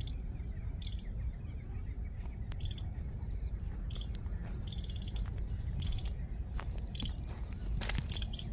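A bird chirping repeatedly, short high chirps about once a second, over a steady low rumble.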